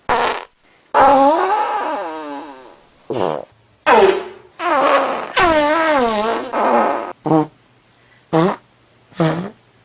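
A rapid series of fart sound effects, about ten separate farts with short gaps between: mostly short blasts, with two long ones whose pitch wobbles and slides about.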